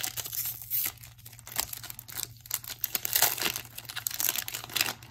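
Foil Magic: The Gathering booster pack wrapper crinkling in the hands as it is torn open: a continuous run of crackles, with louder bursts about three seconds in and near the end.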